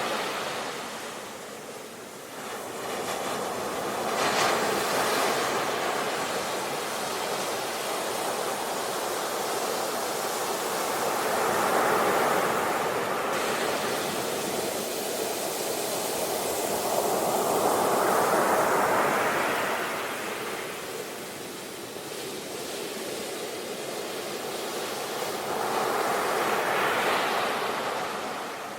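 Ocean surf: waves breaking and washing up the shore, the sound swelling and falling back four times, about every seven or eight seconds.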